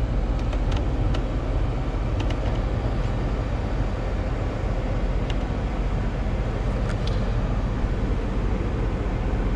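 Steady air rush from a Nissan's heater/ventilation fan blowing through the dash vents, heard inside the car's cabin, with a few faint clicks.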